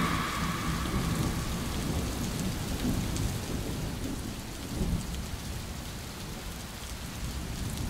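Steady rain with low thunder, slowly fading, with a brief swell in the low rumble about five seconds in.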